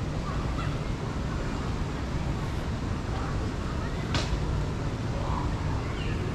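Outdoor city-park ambience: a steady low rumble with faint distant voices, and one sharp click about four seconds in.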